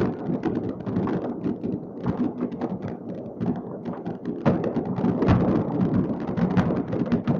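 Many fireworks going off at once across a city: a dense, continuous rumble of distant bangs, with many sharper cracks and pops overlapping.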